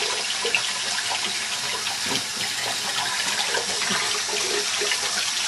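Tap water running steadily and splashing while a cocker spaniel is bathed.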